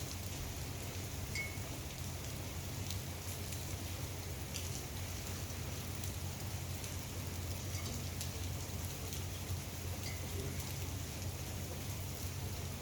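Rain falling on a swimming pool, a steady patter with individual drops splashing on the water, over a steady low hum.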